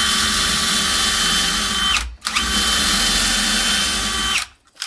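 Electric drill boring a 1/4-inch pilot hole into the edge of a wooden door slab, the pilot for a 7/8-inch spade bit. It runs at a steady speed with a held whine, stops for a moment about two seconds in, then runs again until shortly before the end.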